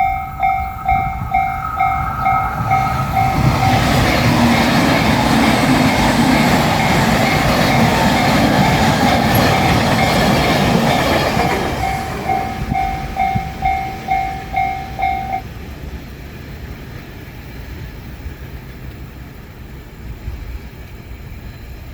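Japanese level-crossing warning bell ringing, about two and a half strikes a second, while a JR Shikoku 8000 series limited express electric train passes over the crossing with a loud rush lasting about eight seconds. The bell goes on ringing after the train has gone and stops about fifteen seconds in.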